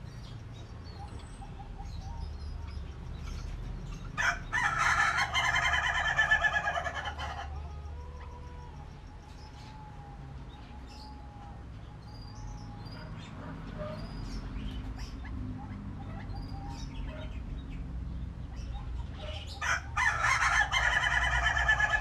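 White-breasted waterhens giving loud, harsh, rapidly repeated calls in two bursts of about three seconds each, one about four seconds in and one near the end.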